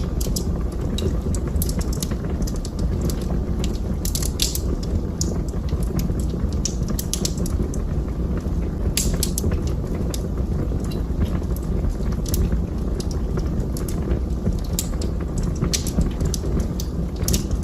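Wood fire burning in a fireplace: a steady low rumble of flames with irregular sharp crackles and pops from the burning logs, some coming in quick clusters.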